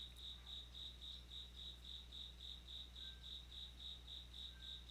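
Faint, steady chirping of a cricket, a high even pulse of about four chirps a second, over a low electrical hum.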